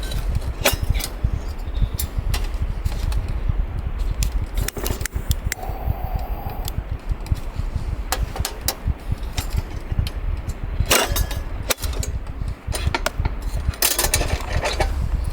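Strong sea wind buffeting the microphone in a low, gusting rumble, with many short clicks and crunches over it. A brief steady tone sounds about six seconds in.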